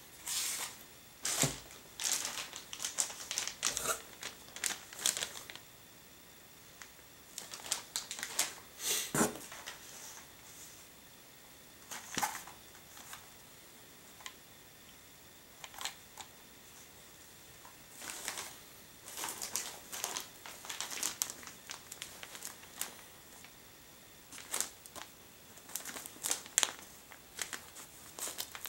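Plastic and cardboard packaging rustling and crinkling as items are lifted out of a cardboard box and handled, in several bursts of crackly clicks with short pauses between them.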